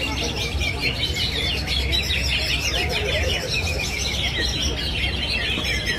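Cucak ijo (green leafbirds) singing at a bird-song contest: a rapid, unbroken high twittering chatter of many overlapping notes.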